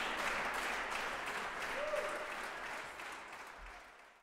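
Audience applauding, the applause fading out near the end.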